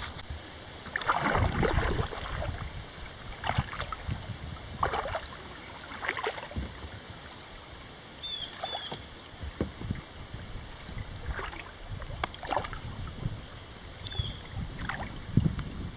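Kayak paddle strokes: the blades dip and pull through the river water in a run of short splashes, about one every second or two, over a low steady rush of water.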